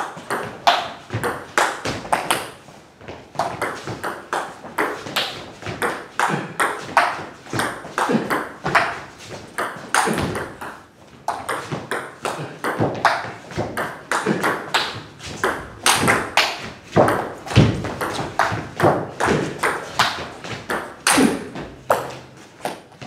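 Table tennis rally: the ball clicking sharply off the table and off the bats in a steady run of two or three clicks a second, as slow spinny topspin is met by backhand chops with long-pimpled rubber (SPINLORD Blitzschlag on thin 0.8 mm sponge).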